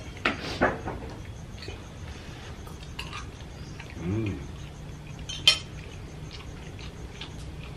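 Spoons clinking and scraping against plates while people eat, a few scattered light clinks with one sharper clink about five and a half seconds in.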